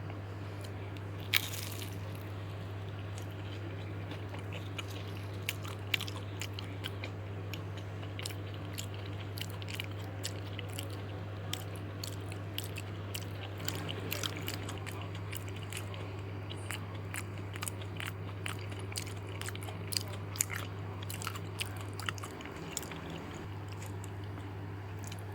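Crunchy fried snack being bitten and chewed close to the microphone, with many irregular sharp crunches, over a steady low hum.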